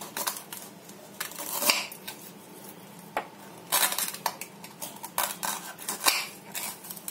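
Small kitchen knife cutting and scraping through the fibrous ends of a palmyra sprout on a cutting board: irregular sharp clicks of the blade against the board mixed with short scraping crunches, a few each second.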